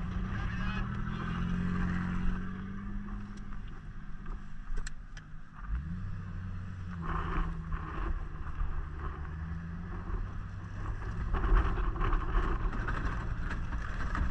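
Vehicle engine running under load while driving over rough ground, its pitch falling over the first few seconds and rising again about six seconds in as it accelerates, with scattered knocks from the bumpy ride.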